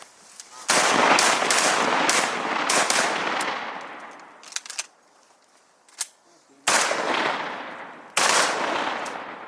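Volley of shotgun shots from several hunters firing at birds. A burst of rapid, overlapping shots about a second in, a few scattered shots after it, then two more heavy blasts near the end, each trailing off in a long echo.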